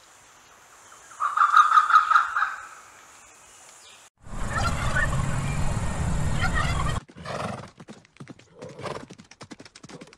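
A sequence of animal sounds: a short pitched call about a second in, then a louder, rough sound with a lot of low rumble from about four seconds that stops abruptly near seven seconds, followed by a run of quick, irregular knocks.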